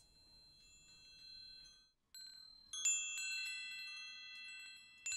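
Chimes ringing: a cluster of bright metal chime tones struck together about three seconds in, ringing on and slowly fading, then struck again near the end. It is a sound cue signalling the start of a show segment.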